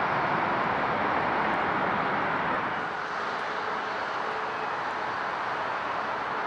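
Twin-engine widebody jet airliners on landing approach: a steady rush of engine noise, which drops a little about three seconds in and then carries a faint steady whine.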